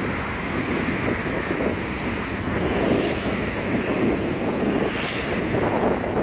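Wind buffeting the microphone over a steady outdoor roar of sea surf, rising and falling in gusts.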